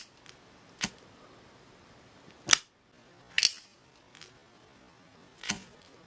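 Zippo lighter's metal lid clicking open and snapping shut during a flip trick: about half a dozen sharp metallic clicks, the loudest about two and a half, three and a half and five and a half seconds in.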